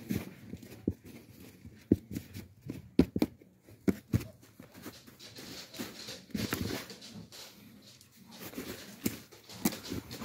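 A hand working potting soil and perlite around a plant's root ball in a pot: irregular rustling and scraping, with several sharp knocks scattered through.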